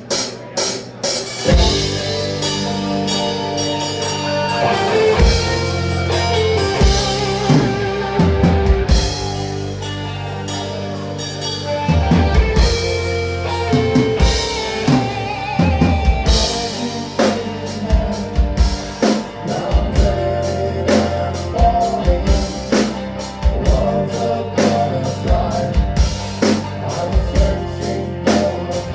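Rock music with a drum kit and sustained pitched instruments; the drumming grows busier about halfway through.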